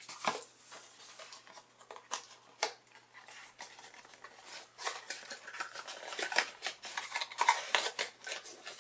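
Hands handling a cardboard product box and its packaging: scattered scrapes, rustles and light clicks, busier in the second half as the inner cardboard tray is lifted out of the box.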